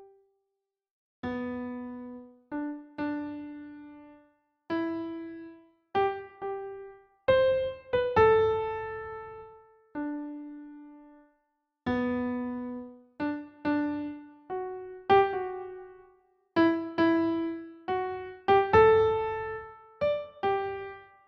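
Slow solo piano-like keyboard melody, one note at a time, each note struck and left to ring out, with short silent gaps between phrases.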